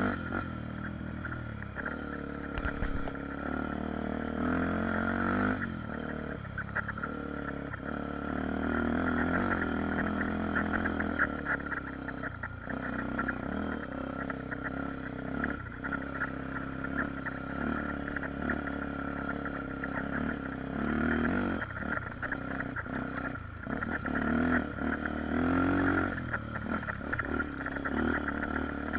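Single-cylinder four-stroke engine of a Honda XR 250 Tornado trail bike, bored to 280cc and fitted with a ProTork Powercore exhaust, running under way on a dirt trail, its pitch rising and falling with the throttle. Short knocks and rattles from the bike come through now and then.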